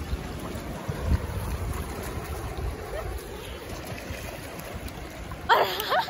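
River water rushing steadily around boulders in a fast, swollen current, with wind buffeting the microphone now and then. A person's voice calls out briefly near the end.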